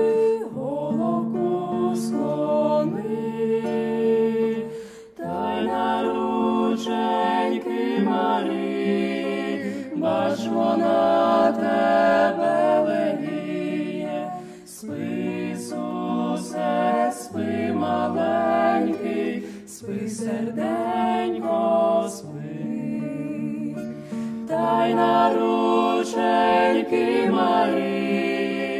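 A small mixed group of one female and two male voices singing a Christmas lullaby to the infant Jesus in harmony, in phrases with short breaks, accompanied by an acoustic guitar.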